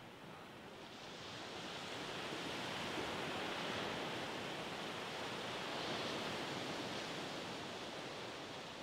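Gentle surf washing up a sandy beach: a steady rush of water that builds about a second in and eases off near the end.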